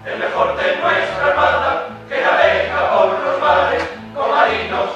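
Male choir singing with guitar accompaniment, in sung phrases that break briefly about two and four seconds in.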